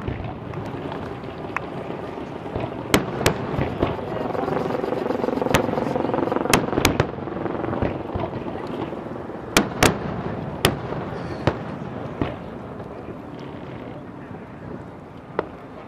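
Fireworks display: shells bursting with about a dozen sharp bangs, several in quick pairs, over a steady background rumble.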